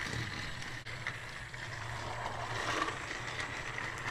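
Battery-powered Trackmaster toy train motors whirring steadily as the engines run along plastic track.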